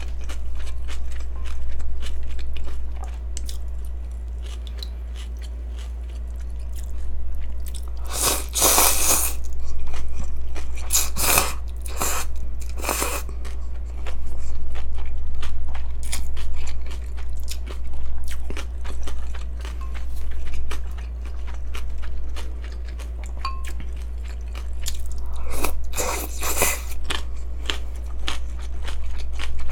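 Close-miked eating of yeolmu naengmyeon, cold noodles with crunchy young radish kimchi: steady chewing and crunching, with loud slurps of noodles about eight seconds in, twice more around eleven to thirteen seconds, and again near the end. A steady low hum runs underneath.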